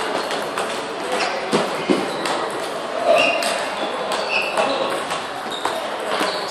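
Table tennis ball clicking off paddles and table tops: the last hits of a rally, then scattered ball clicks that carry on throughout from other tables.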